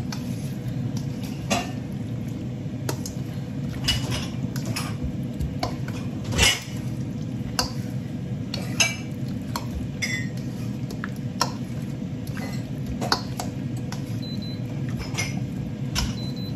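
Metal spoon stirring marinated chicken and potatoes in a stainless steel mixing bowl, knocking and clinking irregularly against the bowl's side, with one louder knock about halfway through. A steady low hum runs underneath.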